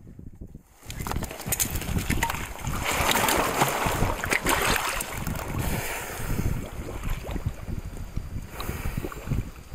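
Water splashing and sloshing as scuba divers surface in a hole cut through lake ice, starting about a second in.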